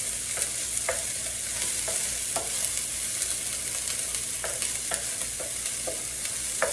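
Green peas and onions sizzling in an electric skillet while a wooden spatula stirs them, scraping and knocking against the pan about twice a second.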